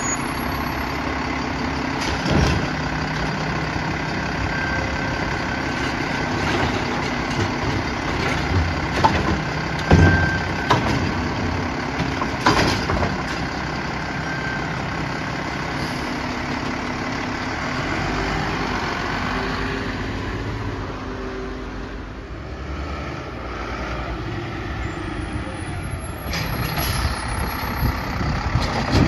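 Mack LR side-loader garbage truck's engine running while its Heil Rapid Rail automated arm lifts and empties a wheeled trash cart, with several sharp bangs as the cart is shaken out over the hopper. Near the end the arm grabs and lifts another cart.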